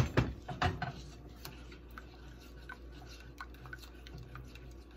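Silicone spatula stirring ketchup into sauce in a stainless steel saucepan: a sharp knock at the start and a few more within the first second, then light scattered taps and scrapes against the pan.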